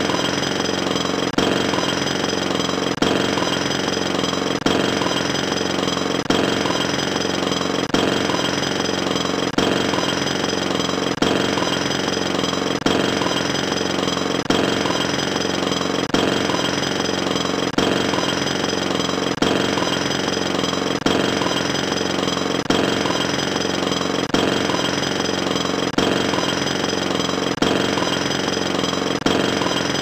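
Jackhammer hammering steadily and rapidly, with a sharper knock repeating about every second and a half.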